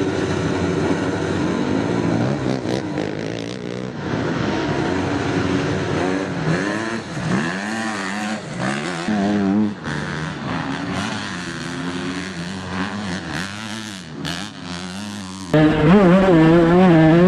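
Several two-stroke motocross bike engines revving hard and dropping back, their pitch rising and falling repeatedly as the bikes claw through deep mud. Near the end a single engine, much closer and louder, takes over, revving.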